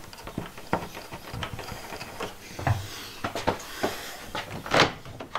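Irregular small clicks and knocks from hands handling a Norcold RV refrigerator door at its top hinge, with a louder scraping knock near the end.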